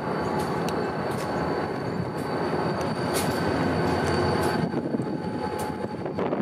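Diesel freight locomotives running as they approach along the track, a steady rumble with scattered sharp clicks and a thin steady high whine.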